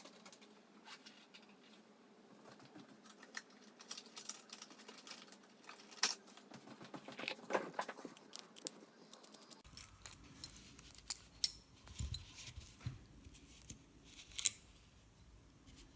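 Scattered small clicks, clinks and rustles of hands handling metal lock parts and small tools on a work surface, with a few sharper clicks in the second half.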